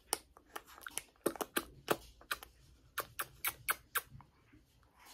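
A string of quick smacking kisses, lip smacks at an irregular pace of about three a second, dying away about four seconds in.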